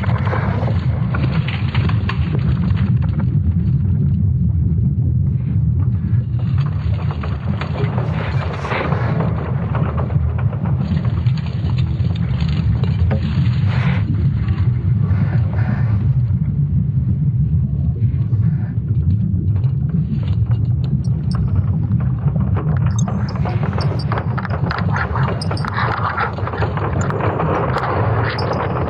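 Sonified space data presented as the sound of Earth's magnetosphere: a steady deep rumble with a crackling hiss above it that swells and fades several times.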